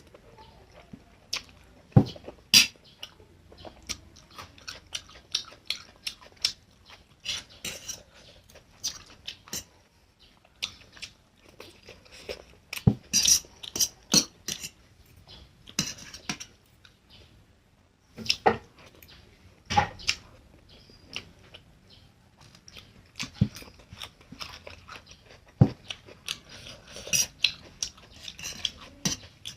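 Close-miked mouth sounds of chewing Maggi instant noodles and fried egg, with sharp clicks of cutlery and dishes scattered throughout.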